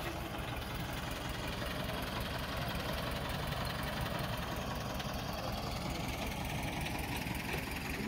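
Tractor diesel engine running steadily, a rapid even chugging.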